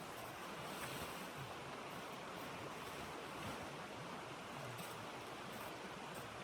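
Steady rushing of blizzard wind, with a few faint ticks about five seconds in.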